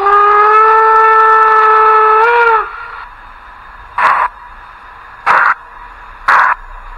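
Sound decoder of a model Br 39 steam locomotive playing a steam whistle, one long steady blast that bends up slightly as it cuts off. It is followed by three steam chuffs, coming closer together as the engine starts to pull away.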